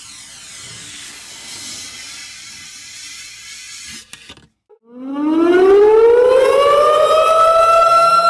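A hissing rush for about four seconds, then a couple of clicks and a brief gap. From about five seconds in, an air-raid siren winds up, rising steeply in pitch, then holds a loud steady wail.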